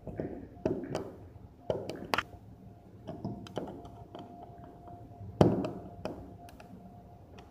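Irregular taps, clicks and knocks of hand work on an electrical wall socket, its loose, bent part being set straight. The loudest knock comes about five and a half seconds in.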